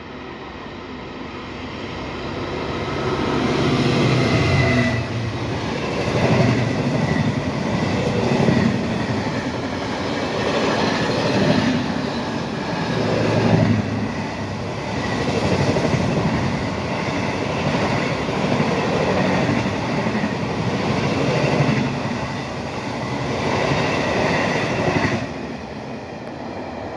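A Class 66 diesel freight locomotive, with its two-stroke V12 engine, approaches and passes, growing louder over the first few seconds. A long train of container flat wagons then rumbles and clatters past, swelling and easing every couple of seconds as the wheels cross the track, with a faint high wheel squeal at times. The noise drops suddenly near the end as the last wagon goes by.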